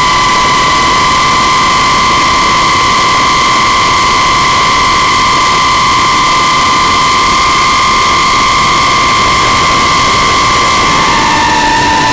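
Five-inch FPV quadcopter's brushless motors (Hyperlite 2405 2522kv) and three-blade props, heard from the onboard camera: a loud, steady high whine over a heavy rushing hiss of prop wash and wind. The whine's pitch drops a little near the end as the throttle eases and the quad descends.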